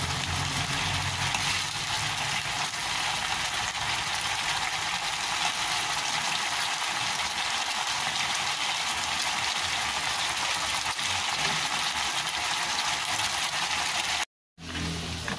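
Food sizzling in a hot pan: a steady, even hiss that cuts off abruptly near the end.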